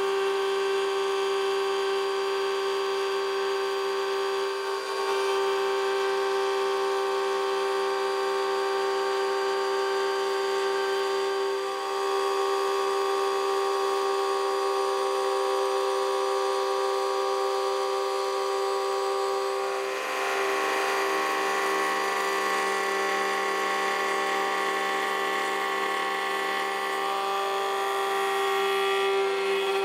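Table-mounted router with a bearing-guided trim bit running steadily, cutting a wooden guitar neck blank to its template. The whine holds one steady pitch, and the cutting noise changes a few times as the wood is fed along the bit.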